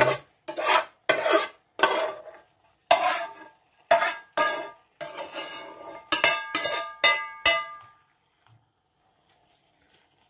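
A metal utensil scraping sautéed mung beans out of a frying pan into a cooking pot, in about eight separate strokes, followed by a quick run of about five knocks that ring on the metal as the utensil is tapped clean.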